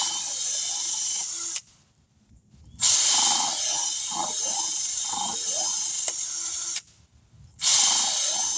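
Power drill with a reamer bit running in three bursts, reaming out the screw puncture in a tire to prepare it for a patch. Each run is a steady, hissy whir; the first stops after about a second and a half, the second runs about four seconds, and the third starts near the end.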